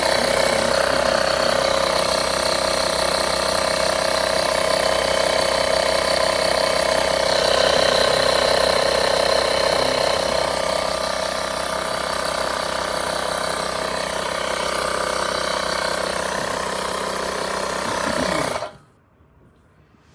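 Built-in air compressor of a UIBI X5 portable jump starter running steadily, inflating a tire. It cuts off suddenly near the end.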